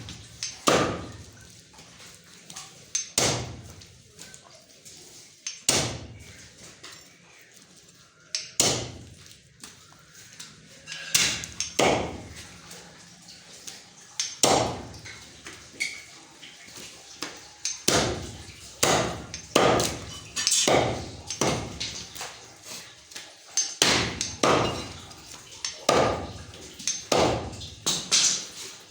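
Butcher's cleaver chopping through mutton legs on a chopping block: an irregular series of sharp chops, closer together in the second half.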